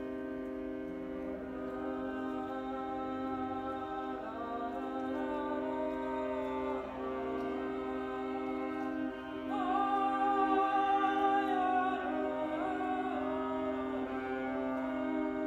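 Solo viola improvising in slow, sustained bowed notes: a steady low drone under a higher line that slides between pitches and grows louder about ten seconds in. The notes ring on in the reverberant limestone cave.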